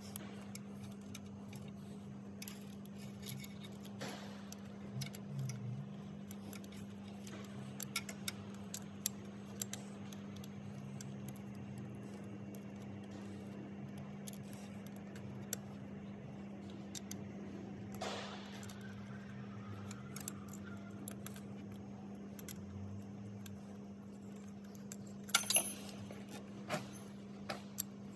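Scattered small metallic clicks and taps of a hand tool and bolt hardware being worked on an engine's intake manifold, over a steady low hum. A quick cluster of sharper clicks comes near the end.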